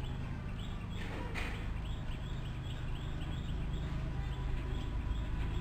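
A bird calling in a quick run of short chirps, about three a second, over the low steady rumble of a diesel locomotive approaching in the distance.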